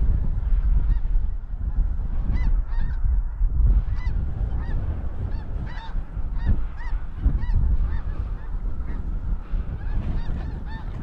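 Snow geese calling: many short, high, arched honks overlapping throughout. A steady low rumble of blizzard wind on the microphone runs underneath.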